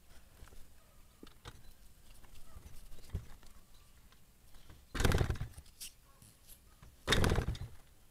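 Two short bursts about two seconds apart from kick-starting a Yamaha PW80's two-stroke single-cylinder engine, which does not catch and keep running.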